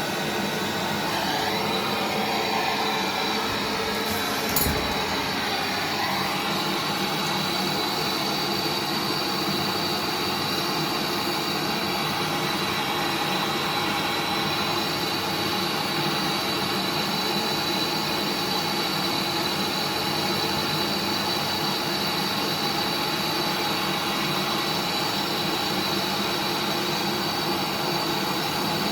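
Gas brazing torch flame burning with a steady hiss while copper refrigeration pipe joints are heated. A single sharp click sounds about four and a half seconds in.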